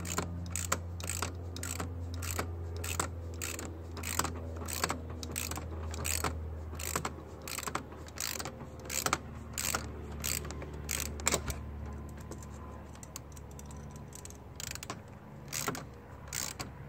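Ratchet wrench clicking in short runs of strokes as a car battery terminal nut is tightened, the clicks thinning out in the last few seconds.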